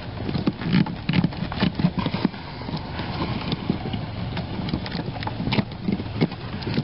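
Plastic wiring-harness connectors being worked loose and unplugged by hand under a pickup's dashboard: an irregular run of small plastic clicks and knocks, with the rustle and bump of the wires being handled.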